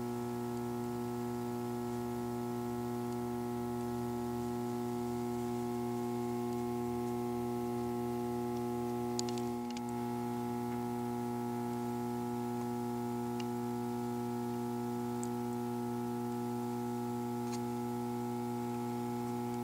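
Steady electrical mains hum, a low buzz with several higher tones stacked over it, with a few faint ticks around the middle.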